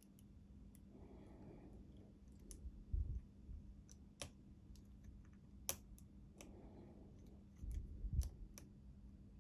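Lock pick clicking against the pin stack inside a Master Lock 6835 padlock's keyway under tension, a scatter of small sharp clicks at irregular intervals as pins are worked toward a deeper false set.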